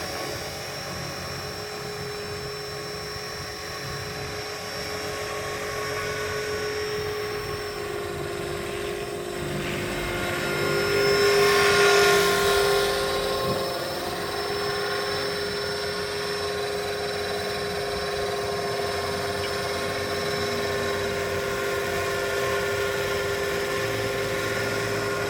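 Electric RC helicopter (Tarot 450 Pro under an MD500 scale body) in flight: a steady whine from the motor and rotor. The pitch dips slightly about nine seconds in, and the sound swells louder for a couple of seconds around eleven to thirteen seconds in.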